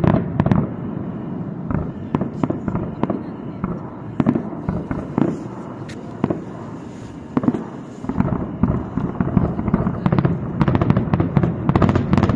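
Aerial firework shells bursting in a string of bangs with crackling. The bangs come a second or so apart at first, then thicken into rapid crackling from about eight seconds in.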